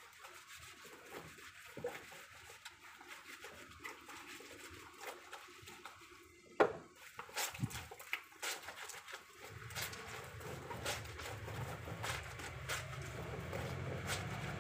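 Water dripping and splashing from a soaked cotton blanket as it is hand-wrung and lifted over a plastic drum of water, with many short drips and splats. A sharp knock sounds about halfway through, and a low steady hum joins in for the last few seconds.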